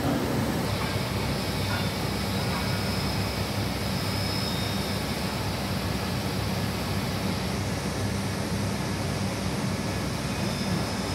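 Steady drone of crystal-cutting workshop machinery, the motors of the diamond cutting wheels running, with a faint high whine above it.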